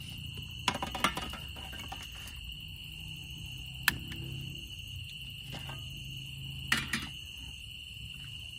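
Metal cookware and a portable gas stove being handled: a clatter of clicks about a second in, one sharp click near four seconds and a few more near seven seconds. Under them runs a steady high-pitched insect trill.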